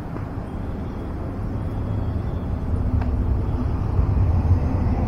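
Low, steady rumble of road traffic, slowly growing louder.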